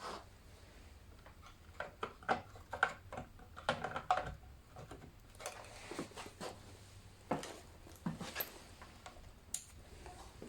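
A series of irregular light clicks and knocks, thickest between about two and four and a half seconds in, with scattered ones after.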